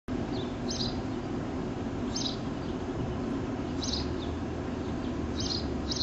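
A bird giving short high chirps about every second and a half, over a steady background noise with a low hum joining about four seconds in.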